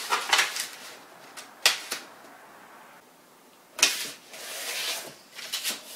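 A sheet of paper rustling and crackling as hands fold it and press the creases flat, in short bursts with a quiet stretch in the middle. The sharpest crackle comes just before four seconds in.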